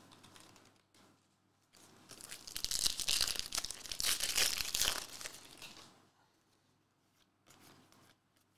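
Foil wrapper of a Panini Hoops basketball card pack being torn open and crinkled, a dense crackling tear that starts about two seconds in and lasts around four seconds. A brief faint rustle follows near the end.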